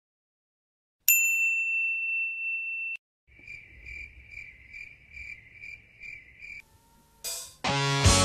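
Logo intro sound effects: a bright ding that rings for about two seconds and cuts off, then about eight faint high chirps in a quick even rhythm, a short whoosh, and music starting near the end.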